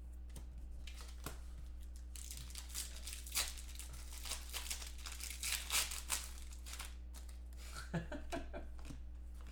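Foil wrapper of a Panini Contenders football card pack crinkling and tearing as it is ripped open, a dense run of sharp crackles from about two to seven seconds in, then the cards rubbing and clicking as they are handled. A steady low electrical hum runs underneath.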